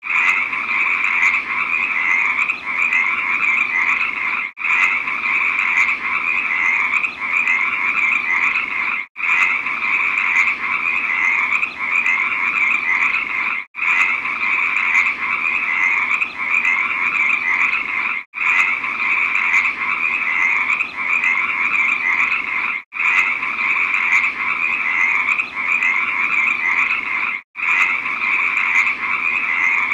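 Many frogs croaking together in a dense, continuous chorus. There is a brief gap about every four and a half seconds, where the recording repeats.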